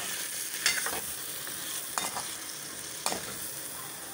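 Chicken pieces in onion-tomato purée sizzling in hot oil in a pan while a spatula stirs them, the masala being fried down (bhunai). The spatula scrapes or knocks against the pan three times, about once a second.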